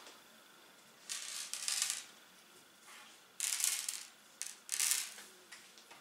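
Dried peas scattered by hand onto a wooden tabletop, rattling and skittering across the wood in a few short bursts with a single click between them.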